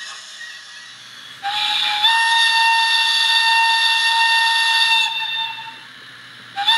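Locomotive whistle played by the ESU E94 HO model's LokSound V4 sound decoder through its onboard speakers, a sample of the real E94's whistle. One long whistle starts about a second and a half in, steps up a little in pitch soon after, holds for about three seconds and tails off; a second whistle blast starts just before the end.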